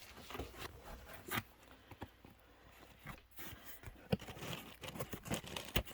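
Items and packaging being handled: intermittent light rustles, scrapes and small knocks, with a sharper knock near the end.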